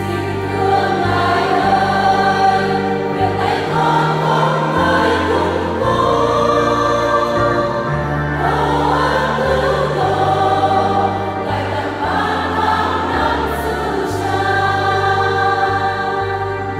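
Church choir singing a Vietnamese Catholic hymn, over held low accompaniment notes that change every second or two.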